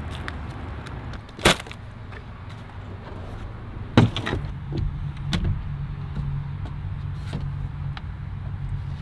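Two sharp knocks about two and a half seconds apart, with rustling and smaller clicks, as someone handles the tailgate and camper shell of a pickup and climbs into the truck bed. A steady low hum starts with the second knock.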